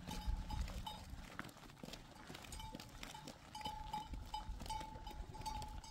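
Herd of goats walking along a dirt road, many small hoof clicks on the gravel.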